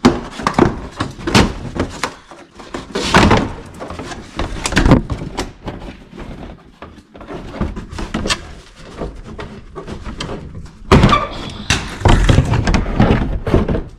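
Irregular knocks, thunks and scraping of a plastic wheel-well liner being unbolted and pulled out of a pickup's wheel arch, with a burst of heavier clatter about three seconds in and another near the end.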